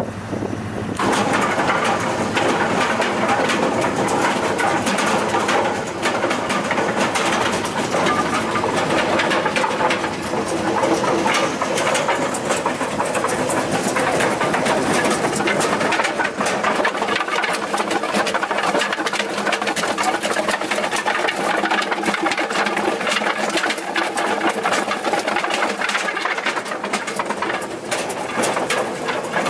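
Linares wood chipper running hard, its engine and rotor giving a steady machine note under a dense run of short cracks, the sound of branches being chipped. It comes in sharply about a second in.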